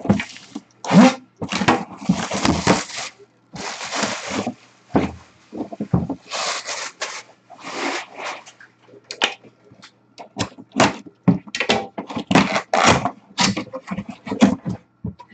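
Plastic shrink-wrap being torn and crinkled off a cardboard box in a run of irregular crackling bursts, then quicker scrapes and clicks as the box's cardboard top flap is handled near the end.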